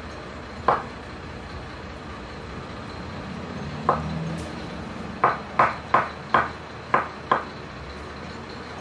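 Kitchen knife knocking on a wooden cutting board while cutting an avocado: a single knock about a second in, another near four seconds, then a run of six knocks at about three a second as the avocado is diced.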